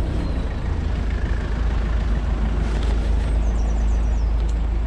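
Van engine and road noise heard from inside the cab while driving: a steady low rumble.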